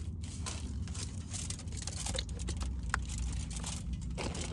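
Water poured from a plastic bottle pattering onto fish in an aluminium foil packet, then the foil crinkling as it is handled, over a steady low rumble.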